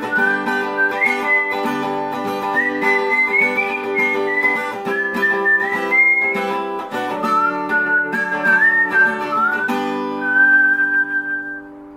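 Outro music: a whistled melody over plucked acoustic guitar, ending on one long held whistled note near the end.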